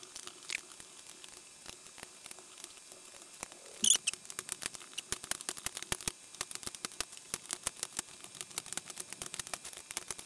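Plastic knobs being pulled off the control shafts of a Behringer Eurorack UB1202 mixer and set down on a bench: a run of small clicks and taps, sparse at first and several a second from about halfway through.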